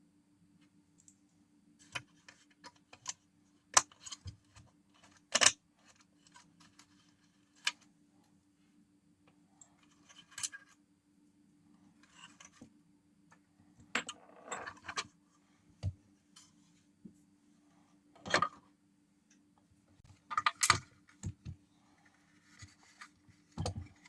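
Scattered clicks, clinks and knocks of disassembled kitchen mixer parts and tools being handled on a workbench, a few louder clacks among them, over a faint steady hum.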